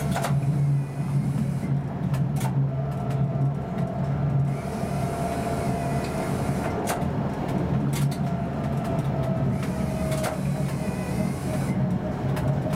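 Tram running along its rails at speed, heard from the driver's cab: a steady low drone from the drive with a faint whine above it, and a few sharp clicks.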